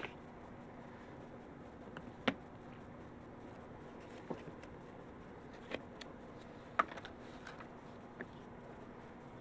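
Hands handling paper on a tabletop: a scatter of light taps and clicks, the sharpest about two seconds in and again near the seven-second mark, over a low steady hum.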